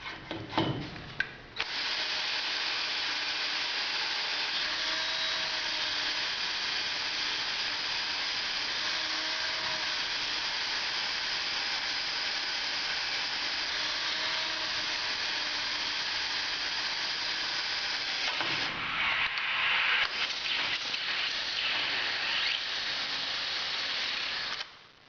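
Power drill running steadily as it drills the second hole through the hot-tap valve into a pressurised 2-inch line. A few knocks come at the start. Near the end the drilling turns rougher and louder for several seconds, then stops abruptly.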